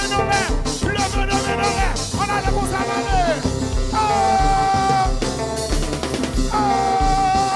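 A live konpa band playing: electric guitar lines and some singing over drums and bass with a steady beat, including a few long held notes.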